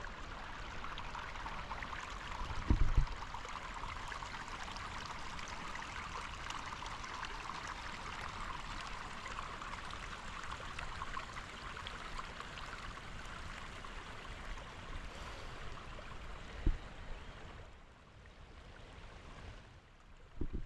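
Steady rushing of a mountain stream, fading for the last few seconds. Two brief low thumps cut across it, about three seconds in and near the end.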